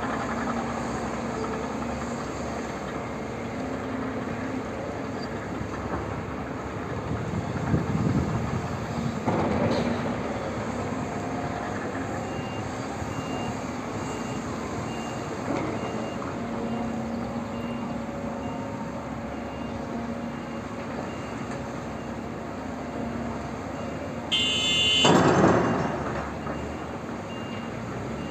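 Cat 330 hydraulic excavator's diesel engine running steadily under load as it digs and swings. There are a few rumbles of earth being scooped, and the loudest sound, about 25 s in, is a crash of earth and stones dropped into the steel body of a Cat 730 articulated dump truck. From about 12 s on, a faint reversing alarm beeps about once a second.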